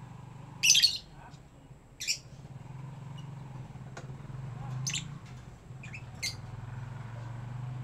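African lovebirds giving short, sharp high-pitched chirps, five in all, the loudest about a second in, over a steady low hum.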